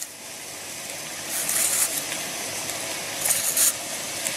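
Diced chicken breast and chopped onions sizzling in a frying pan as they sweat down, with two brief louder hisses, about a second and a half in and again past three seconds.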